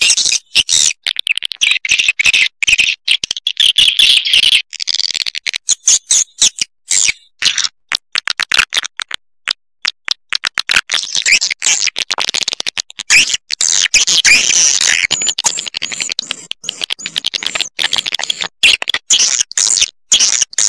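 Swiftlet call sound (suara panggil), the lure recording played from tweeters to draw swiftlets into a swiftlet house: dense, high twittering chirps in rapid stuttering runs, with a short lull about nine seconds in.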